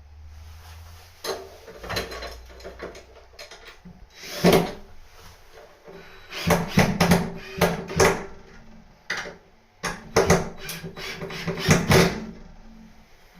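Irregular knocks and clattering of wooden parts and hardware being handled: a single loud knock about four seconds in, then a run of several sharp knocks in the second half.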